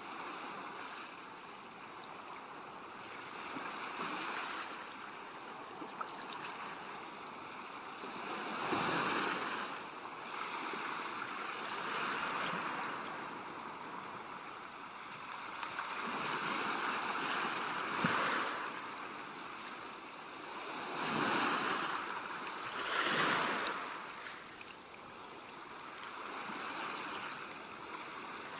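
Ocean surf: waves breaking and washing up over a steady hiss of water. The sound swells and falls back every few seconds, with two of the strongest crashes close together near the end.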